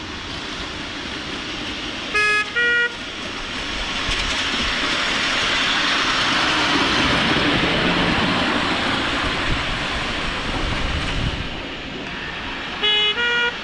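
A miniature railway locomotive's horn sounding two short toots, a lower note then a higher one, twice, about ten seconds apart. In between, a broad rushing noise swells and fades away.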